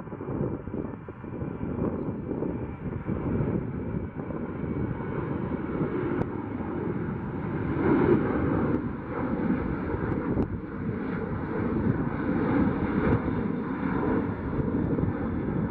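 Twin CFM56-7B turbofan engines of a Boeing 737-800 airliner climbing out after takeoff: a continuous, wavering jet rumble, heavy in the low end and rising a little about halfway through.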